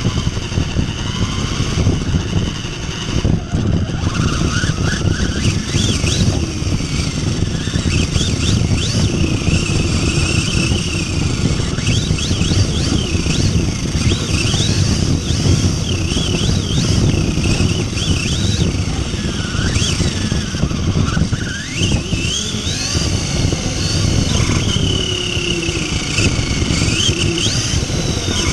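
Large-scale RC truck driving, heard from a camera mounted on its chassis. The motor whines up and down in pitch as the throttle changes, over a steady rumble of tyres and drivetrain on pavement.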